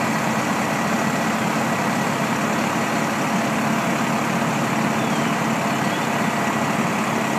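Fire engines idling at a fire scene: a constant engine rumble under a steady hiss.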